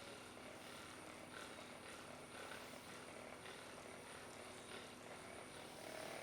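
Faint room tone with soft, scattered rustles of hands and clothing during hands-on pressure work on a patient, over a thin steady high-pitched whine.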